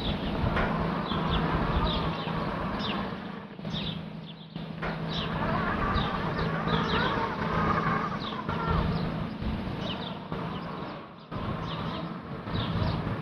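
Toadi robotic lawn mower running with a steady hum, turning and creeping in the same spot instead of mowing onward. Birds chirp repeatedly over it.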